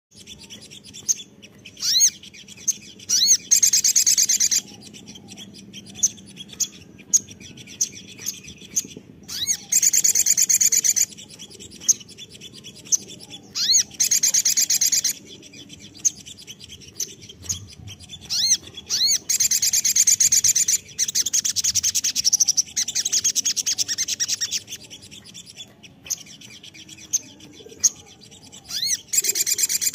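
Male olive-backed sunbird (sogon) singing: repeated bursts of fast, high trilling song, most about a second long and one of several seconds, with short sharp chirps scattered between them.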